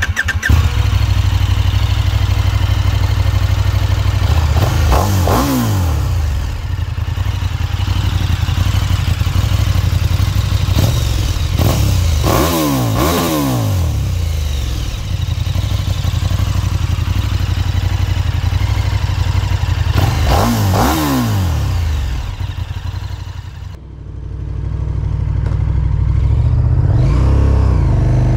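KTM 1290 Super Duke R's V-twin engine running hard under way, heard from the rider's seat with wind rush. The engine note sweeps sharply down three times. Near the end it drops off briefly, then builds back up.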